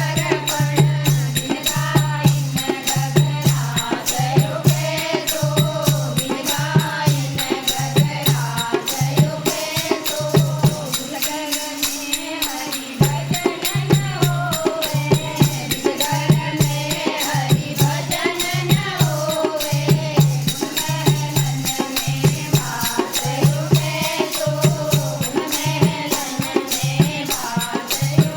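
Devotional bhajan sung as a kirtan, with voices singing together over a low drum beat about once a second and steady rattling percussion. The drum drops out briefly in the middle.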